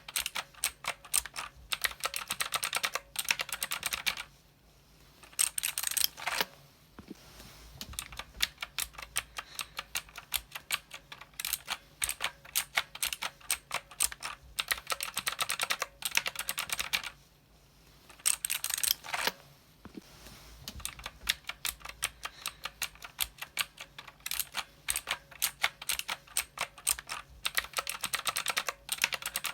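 Typing on a mechanical keyboard: fast runs of keystroke clicks, with a couple of brief pauses and a few softer, sparser stretches.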